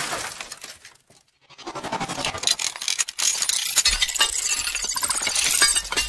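Sound effect of glass shattering and breaking: after a brief silence about a second in, a dense run of sharp clinks and crashes, with a low rumble joining about four seconds in.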